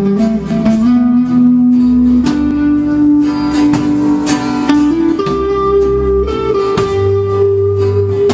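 Guitar-led band music: long held melody notes stepping from one pitch to the next over a bass line, with steady strummed chords.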